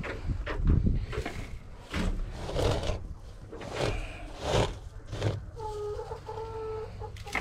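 Domestic chickens clucking, with two drawn-out, steady-pitched calls in the last couple of seconds, over a string of irregular scraping noises from cleaning droppings off the coop's roost boards.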